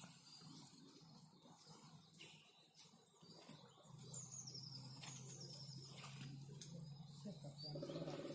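Faint outdoor quiet with small birds chirping in short high runs, over a low steady hum that comes in about halfway through and a few faint clicks.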